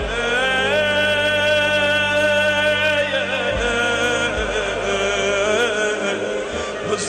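Intro music: a solo voice singing long held notes with a wavering vibrato over a steady low drone, with two deep drum thuds about halfway through.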